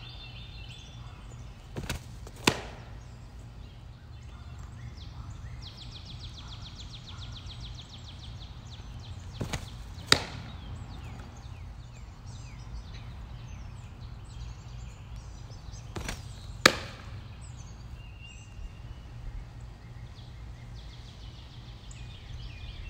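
Three softball pitches about seven seconds apart, each a lighter click and then, about half a second later, a sharp loud pop of the ball smacking into a catcher's glove. Birds trill and chirp in the background.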